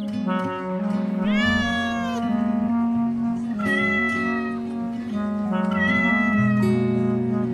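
A cat meowing three times over steady background music: the first meow is longer, rising and then falling in pitch, and the next two are shorter.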